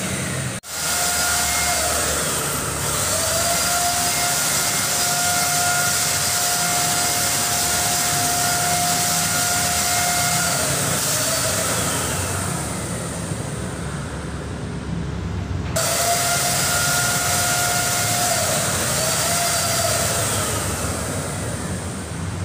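Handheld electric Multipro paint spray gun running and spraying paint, a steady motor whine with a hiss of atomised paint. The whine bends in pitch now and then. The hiss thins out for a few seconds past the middle and then comes back abruptly.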